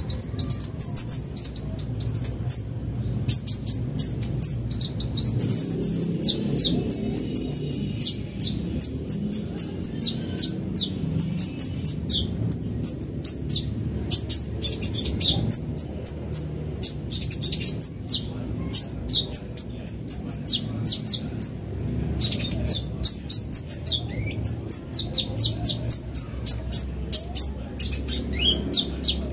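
Male sunbird (kolibri ninja) singing a fast, continuous run of high, thin chirps and twitters in quickly repeated short phrases, over a low steady rumble.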